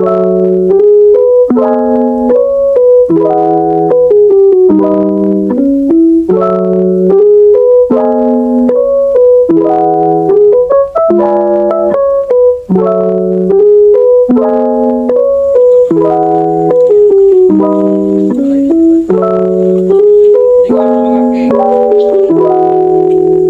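Background music: a keyboard playing a bright, repeating melody over chords at a steady pace, starting suddenly.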